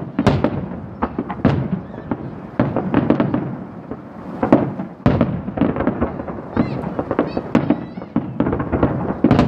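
Aerial firework shells bursting one after another in a large display, a sharp bang about every second, each followed by a short rumbling tail.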